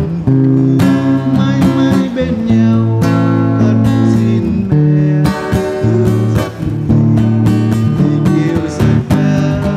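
Acoustic guitar strummed, each chord ringing on between strokes.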